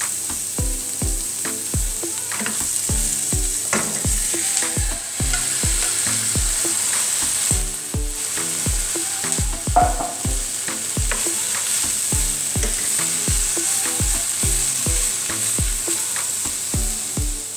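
Vegetables sizzling in olive oil in a hot pan while being stirred, with a couple of knocks against the pan, over background music with a steady beat.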